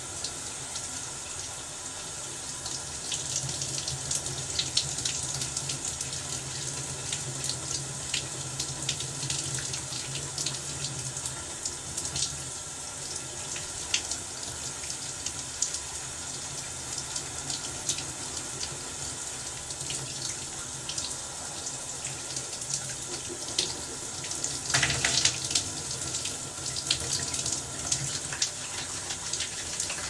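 Shower running: a steady hiss of spray with irregular small spatters and splashes, and a louder burst of splashing about 25 seconds in.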